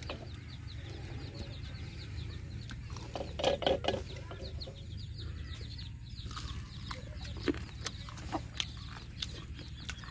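Chickens clucking, with a fast run of high chirps that comes twice and louder calls about three and a half seconds in.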